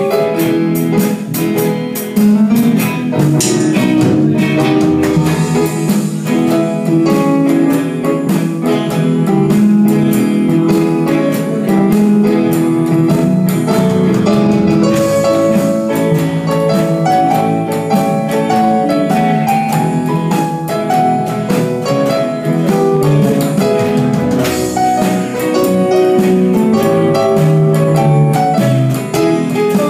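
Live blues band playing an instrumental intro: electric guitar, bass guitar, keyboard and drum kit, steady and loud throughout.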